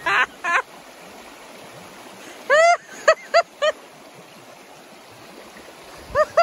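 River water running steadily over rocks. Over it come short, high-pitched cries from people wading through the ice-cold water, a cluster of about four some two and a half seconds in and more near the end.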